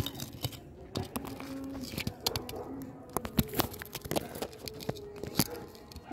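Irregular clicks, taps and rubbing of fingers handling a phone close to its microphone, with a few louder knocks.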